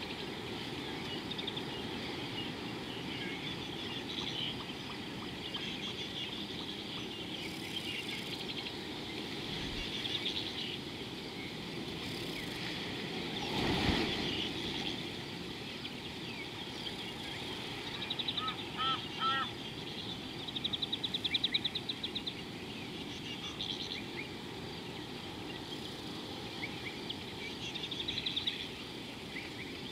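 Birds calling and trilling over a steady low background rush. There are quick chattering trills about two-thirds of the way through and again near the end, and a brief louder swell of noise about halfway.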